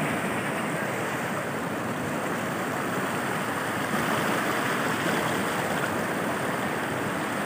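Swollen river in flash flood, its fast current rushing steadily.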